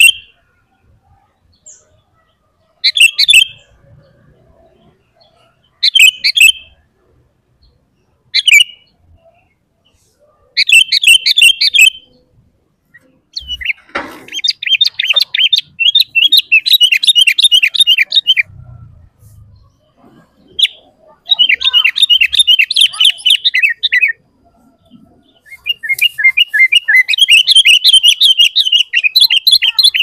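Sooty-headed bulbul (kutilang) singing loudly: short bubbly phrases every two to three seconds, then, from about halfway in, long runs of rapid chattering notes. A soft low knock comes about midway.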